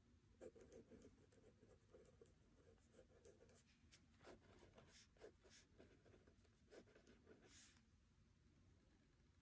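Faint scratching of a pen writing on notebook paper, in many short irregular strokes.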